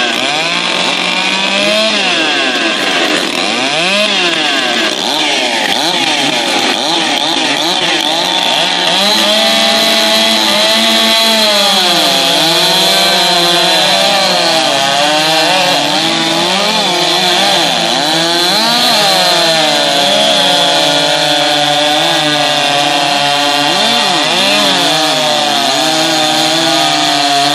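Several standard-class chainsaws running at once at high revs, cutting timber in a race. Their pitches cross, dipping and rising as the chains load up in the wood and free again.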